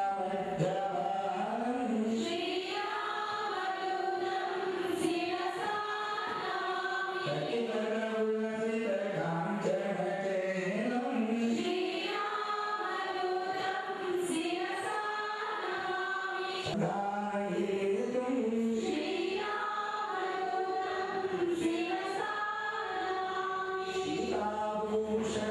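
A group of women singing a Hindu devotional hymn together into microphones, one melody line rising and falling in phrases.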